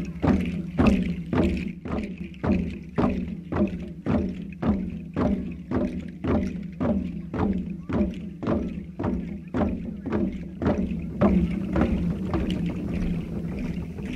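Drums beaten in a steady rhythm, about one stroke every 0.6 seconds, under a group of voices chanting on a sustained pitch, as at a Papua New Guinean singsing. The drumming stops about eleven seconds in while the chanting carries on.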